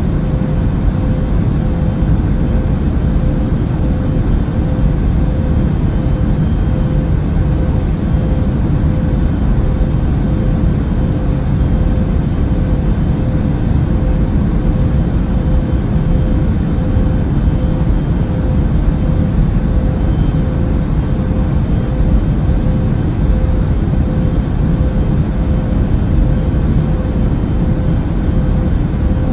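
Airbus A380 airliner cabin noise in cruise flight: a steady, unbroken low rumble of engines and airflow with a faint constant hum.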